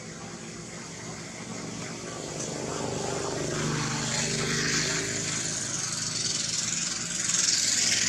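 Engine of a passing motor vehicle, growing louder, its pitch sweeping down about halfway through.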